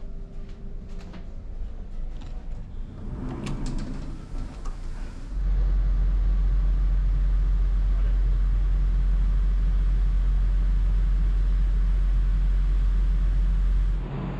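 A few clicks and knocks over a quiet ship's-interior hum. About five seconds in, a loud, steady low rumble takes over: a ferry underway, heard out on its deck. It drops away near the end.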